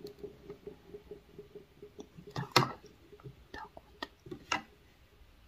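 Soft handling noise and a few sharp clicks, the loudest about two and a half seconds in, from a lamp being adjusted to brighten the light on the face.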